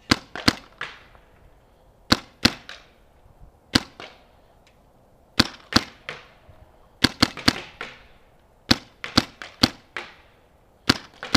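Paintball marker firing: sharp pops in single shots and pairs, then quicker strings of four or five shots, each with a short fading tail.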